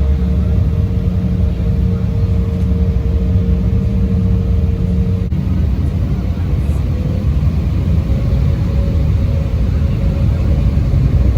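Cabin noise of an Embraer 175 regional jet on the ground before takeoff: a steady low rumble of the engines and airframe, with a steady hum that stops about five seconds in and a faint tone that rises slowly in the second half.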